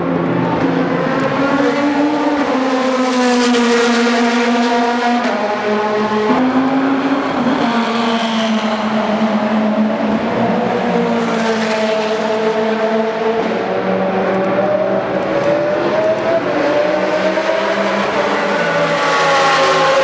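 Racing car engines at high revs as several GT race cars pass in succession, one after another. The engine pitch climbs and drops sharply with gear changes.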